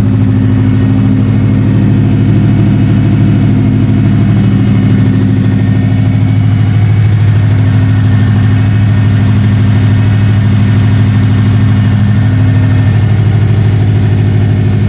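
Subaru STI's boxer engine idling steadily, just started after an engine swap and warming up.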